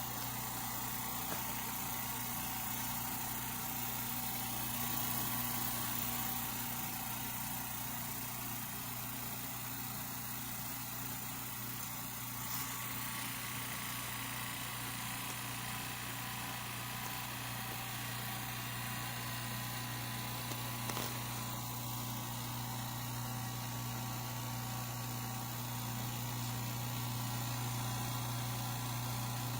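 California Air Tools oil-free air compressor running steadily, an even low hum with no change in pitch.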